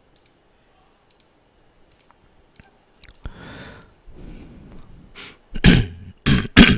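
Computer mouse clicking a few times, spaced about a second apart. Near the end come three louder, short bursts of noise.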